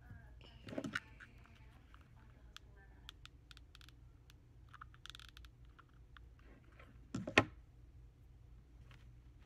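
Faint handling noise of a hot glue gun and small parts being worked at a table: scattered light clicks and taps, with one sharp knock about seven seconds in.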